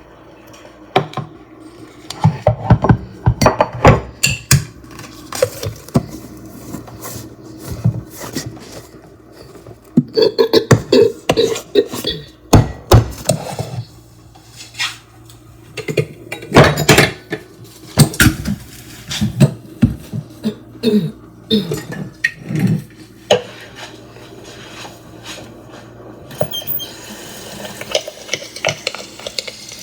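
Kitchen clatter: irregular knocks and clinks of pots, dishes and utensils, coming in clusters with short pauses. Near the end a tap starts running.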